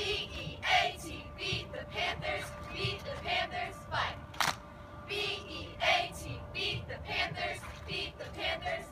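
Cheerleading squad chanting a cheer in unison, the girls' voices coming in short rhythmic shouted syllables, with a sharp smack about halfway through.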